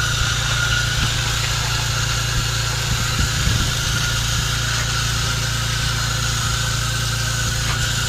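An engine running steadily at idle: a constant low drone with a faint higher whine above it. A few soft knocks come about three seconds in.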